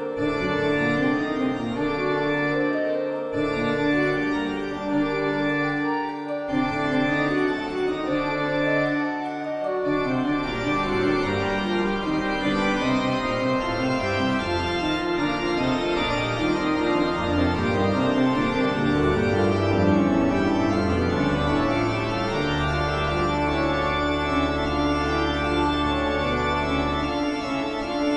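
Organ music: slow sustained chords over held notes, with a long low bass note held for several seconds near the end.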